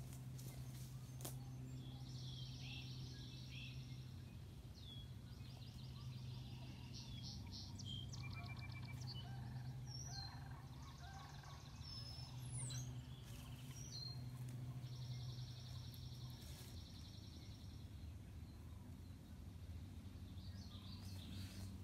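Several wild birds calling: short chirps, quick sweeps and rapid trills, over a steady low hum.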